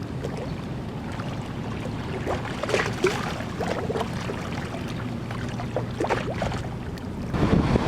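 Outdoor ambience at a river: a steady low motor hum with scattered small ticks and splashes. Near the end, wind starts buffeting the microphone with a louder low rumble.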